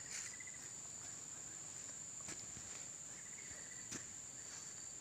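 Steady high-pitched insect drone, with a few faint clicks and short faint chirps over it.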